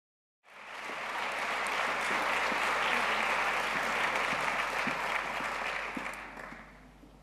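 A large audience applauding, starting about half a second in and fading out near the end.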